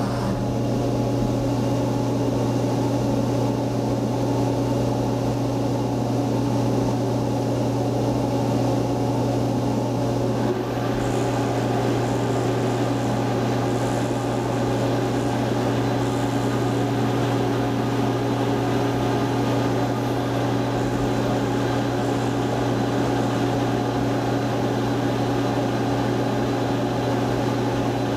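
CNC vertical milling machine running a program in automatic mode: a steady machine hum with a low drone, as the axes move a marker held in the spindle across paper. About ten seconds in, a higher hiss joins the hum.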